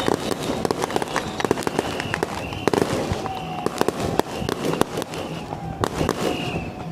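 Firecrackers going off in a rapid, irregular string of sharp cracks.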